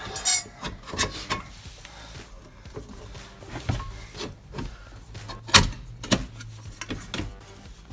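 Metal latch shield and van door latch mechanism being handled and fitted together: scattered clicks and knocks, the sharpest about five and a half seconds in.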